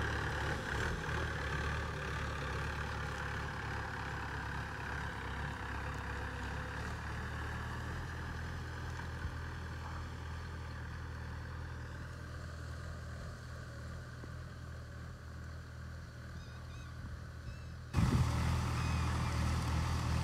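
Vehicle engine running steadily under way, a low, even hum that slowly fades, then becomes suddenly louder near the end.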